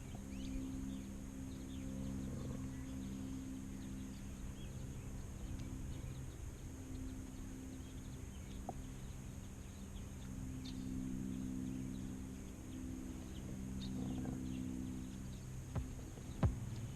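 Warm-weather outdoor ambience: a steady high-pitched insect drone with scattered faint bird chirps, over a low steady hum that fades in and out.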